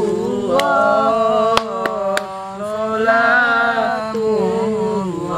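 A young man's voice chanting a sholawat unaccompanied, holding long, wavering notes. A few sharp cracks sound under it about a second into the chant.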